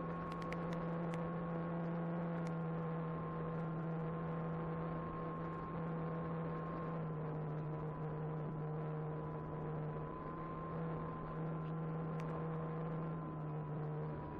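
Brushless electric motor and propeller of an E-flite Apprentice 15e RC airplane running at steady cruise power, a constant droning hum whose pitch dips slightly about halfway through and shifts a little again near the end.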